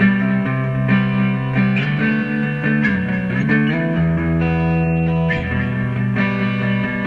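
Instrumental music led by guitar, playing held chords that change every second or so over a bass line.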